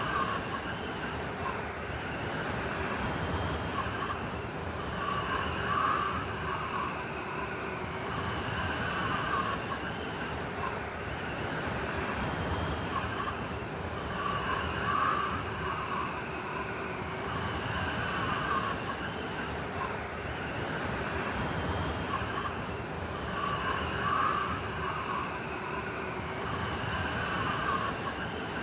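Howling blizzard wind over a steady rush, with whistling gusts that swell and fade every few seconds.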